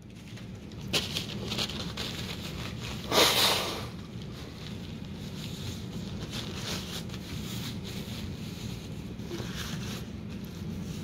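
Muffled rubbing and handling noise from a covered phone, over a steady low rumble, with a louder brushing swish about three seconds in.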